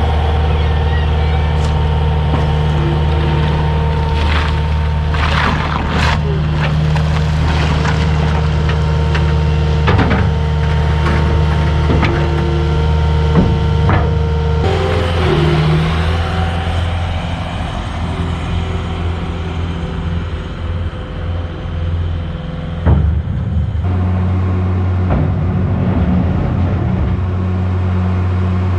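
A farm tractor engine running at a steady speed, with scattered clanks and knocks. The engine note shifts about halfway through and again near the end.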